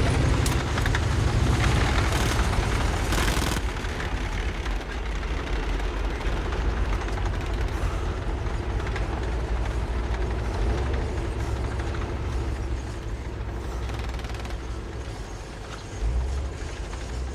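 Battle sound effects: the last bursts of gunfire in the first few seconds, then a continuous low rumble of war noise that swells briefly near the end.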